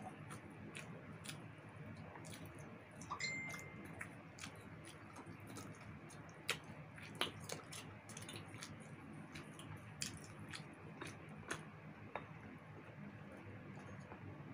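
Close-miked eating sounds: roast chicken being chewed with lip smacks and torn apart by hand, heard as scattered small wet clicks over a low steady hum. A brief high squeak a little over three seconds in.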